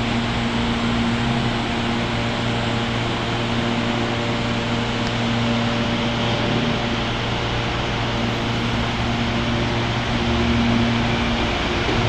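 Series 8000 electric multiple-unit train at the platform: steady hum of its air-conditioning and auxiliary equipment, several steady tones over a noise haze. Near the end the train starts to pull away and the sound grows a little louder.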